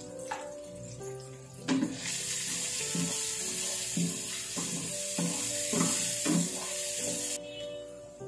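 Chopped garlic sizzling in hot oil and butter in a frying pan while a wooden spatula stirs it, knocking against the pan several times. The sizzle starts about two seconds in and cuts off abruptly near the end.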